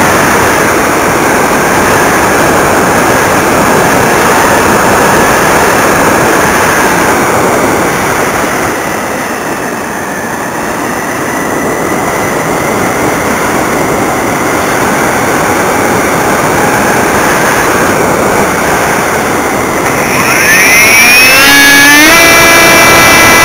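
Airflow rushing loudly past an onboard camera on an Optima XL RC glider in fast gliding flight, easing for a few seconds midway. Near the end the model's brushless electric motor (TGY AerodriveXp 1100Kv on 6S, turning a 9x6 propeller) spools up with a rising whine and then holds a steady tone.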